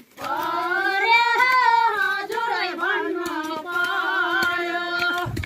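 A woman singing a Nepali folk song unaccompanied, in long held notes. The singing starts suddenly and breaks off just before the end.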